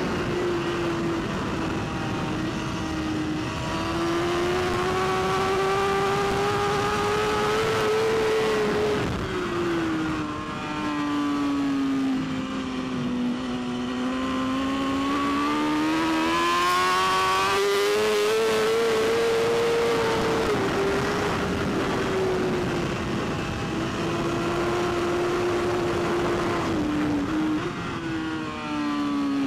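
Superbike's inline-four engine at racing revs, its pitch climbing under acceleration and falling on braking, with brief dips at gear changes. Steady wind rush underneath.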